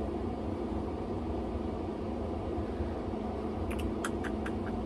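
Steady low background hum, with a quick run of about five clicks on a laptop about four seconds in.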